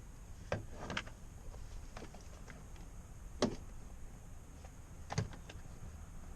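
A few scattered clicks and knocks of parts being handled, the loudest about three and a half seconds in, over a low steady hum.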